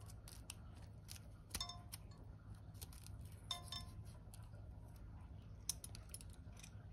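Faint scraping and clicking of a metal vegetable peeler taking strips of zest off a lime, with a couple of light ringing clinks against a glass bowl, about one and a half and three and a half seconds in.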